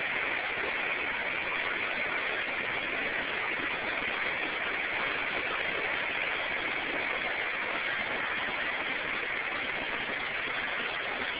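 Yaque del Norte river in flood after storm rains, its fast high water rushing in a steady, unbroken hiss of water noise.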